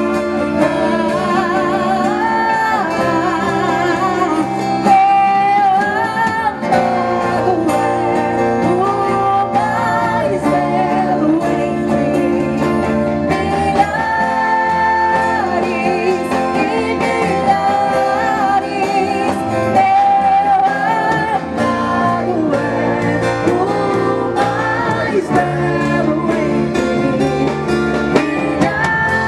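Worship song: singing over guitar and sustained instrumental accompaniment, continuous and steady in level.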